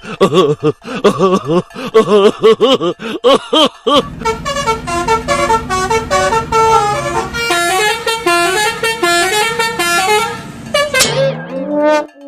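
Bus telolet horn (Basuri multi-tone musical horn) playing: about four seconds of swooping, wobbling notes, then a quick stepped melody of short notes, ending with a falling glide near the end.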